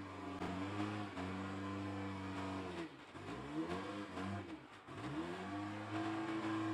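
Engines of a rough-terrain forklift fitted with a bucket and a Yanmar YB451 mini excavator running under work. One engine holds a steady pitch, sags sharply about three seconds in and climbs back up by about five seconds.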